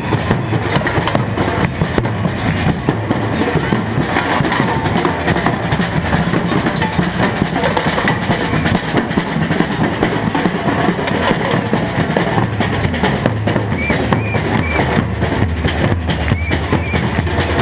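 Street drum band beating marching drums with sticks in a dense, continuous rhythm.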